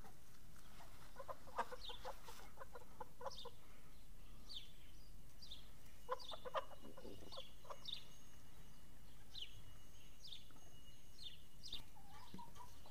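Hens clucking in two quick runs of short clucks, about a second in and again around six seconds. Short, high, falling chirps repeat every second or so.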